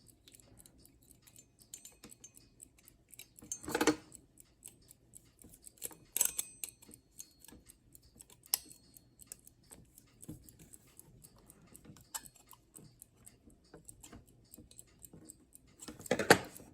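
Small clicks and taps of screws and plastic and metal alarm-clock parts being handled and fitted together, with a few louder knocks, one about 4 seconds in and one near the end.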